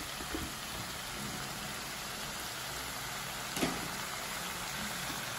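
Chopped spinach and dill sizzling in a nonstick pan on the stove: a steady, even hiss, with a single light knock about three and a half seconds in.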